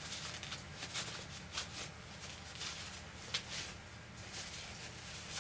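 Soft, irregular rustling and rubbing of a paper tissue wiped over a wood-mounted rubber stamp, cleaning StazOn ink off it.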